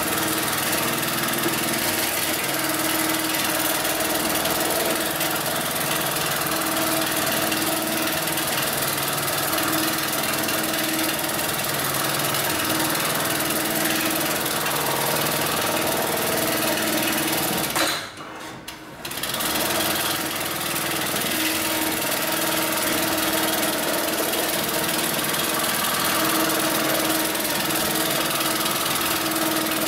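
Hightex MLK600 automatic programmable bar-tacking sewing machine running its sewing cycle, stitching the webbing of two ratchet straps. It stops briefly about two-thirds of the way through, then carries on.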